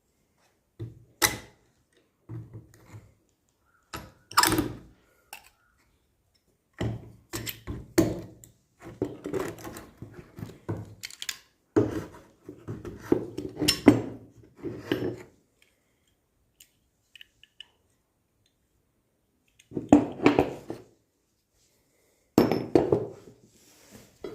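Gun parts being handled and taken apart: irregular clusters of metallic clicks, knocks and clatter, with a couple of quiet pauses.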